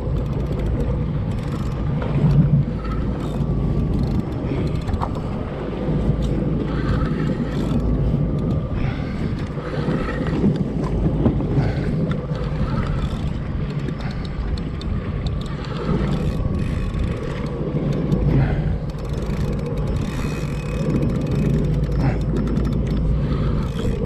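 Jet ski engine idling steadily, under a haze of water and wind noise.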